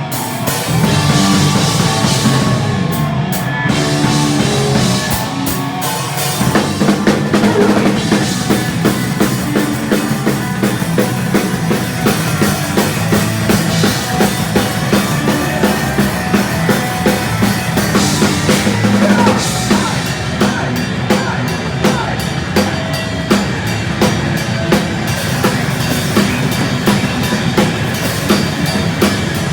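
Heavy speed metal band playing live, with a drum kit driving a fast, steady beat that settles in about six seconds in.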